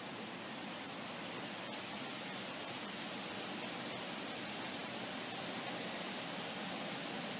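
Wind blowing: a steady, even rushing hiss that swells slightly louder and brighter toward the end.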